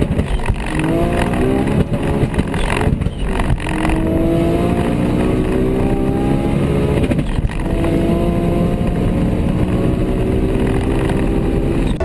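Two high-powered cars accelerating flat out, the Bugatti Chiron's and the tuned Toyota Supra's engines heard together: revs climb in long pulls, broken by upshifts about three and seven seconds in.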